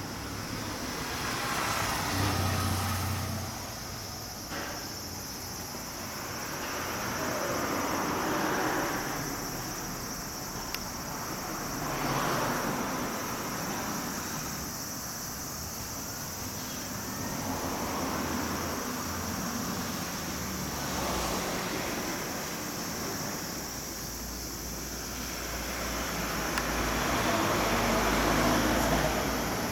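Road traffic passing on a street: vehicles swell up and fade away one after another, about five or six times, over a steady background hiss.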